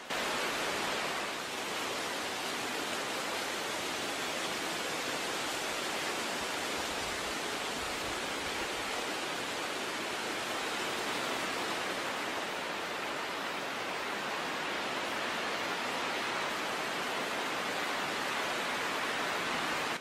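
Steady rushing noise of water, even and unbroken with no swell or rhythm, starting and cutting off abruptly.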